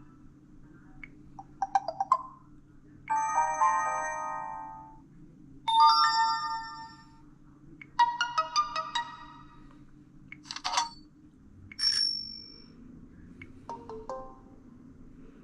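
A Samsung Vibrant's built-in notification tones played one after another through its speaker: about seven short electronic chimes and jingles, each lasting a second or so, with brief pauses between them.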